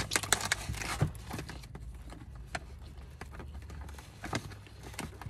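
Sharp clicks and crackles of a clear plastic clamshell container being handled, thickest in the first second and again near the end, over a low steady hum.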